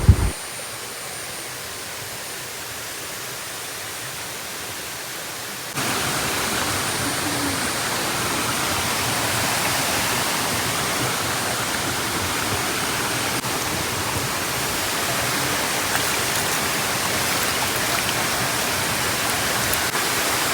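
Waterfall water rushing over rocks into its pools: a steady hiss that jumps louder about six seconds in, then holds steady.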